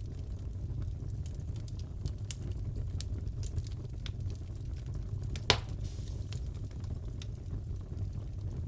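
Crackling wood fire in a fireplace: a steady low rumble under scattered small crackles, with one louder pop about five and a half seconds in.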